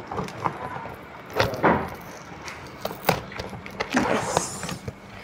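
Cardboard box being opened by hand: packing tape pulled away and cardboard flaps scraping and rustling in a few short bursts.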